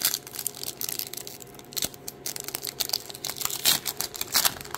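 Foil wrapper of a Topps 2022 Update Series baseball card pack being torn open and crinkled by hand: irregular crackling and rustling, louder near the end.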